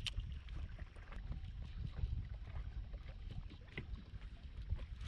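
Low, steady rumble of a fishing boat sitting on the water, with scattered faint light knocks.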